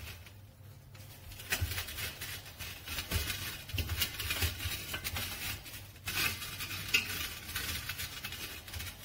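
A hand rubbing salt onto oiled potatoes and turning them on a metal baking tray: irregular soft scraping and rustling, with small knocks of potatoes against the tray.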